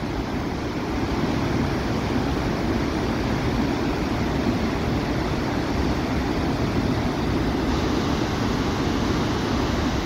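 Steady rushing of a waterfall and the churning whitewater below it.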